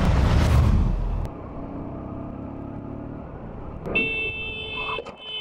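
A loud fiery whoosh transition effect for about the first second. Then a motorcycle engine and city traffic run steadily, and near the end a vehicle horn sounds twice, each blast about a second long.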